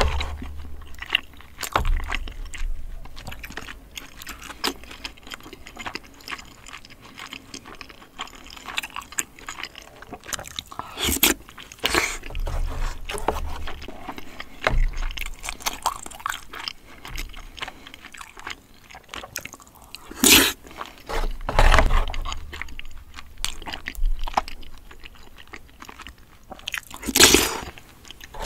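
Close-miked eating sounds of a person chewing and biting creamy spaghetti and braised chicken, a steady run of small wet mouth noises. A few louder sudden sounds stand out, twice around the middle and once near the end.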